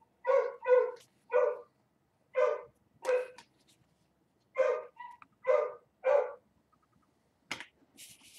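A dog barking repeatedly, about eight short barks at irregular intervals, then a single sharp click near the end.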